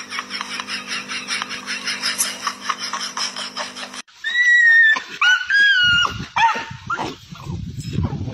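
Quick repeated bursts of laughter, then, after a sudden cut, a dog whining in several high cries that bend up and down in pitch. A low rumbling noise follows near the end.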